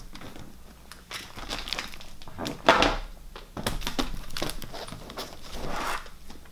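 Plastic comic-book bags crinkling and rustling as a stack of bagged comics is handled and shuffled, with a louder rustle and knock about two and a half seconds in.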